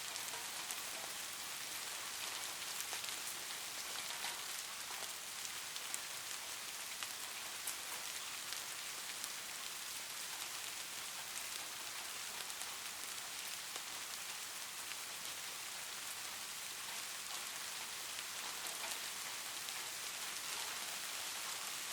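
Steady rain falling, a continuous hiss of many small drops with faint patters of individual raindrops. No thunder is heard.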